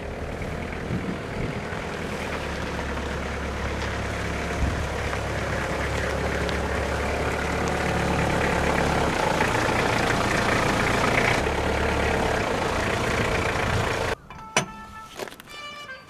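Toyota Hiace van's engine running steadily and growing slightly louder. It cuts off abruptly near the end, and music begins.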